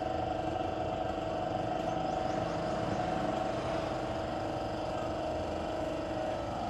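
A motor running steadily, a constant droning hum with a fixed pitch.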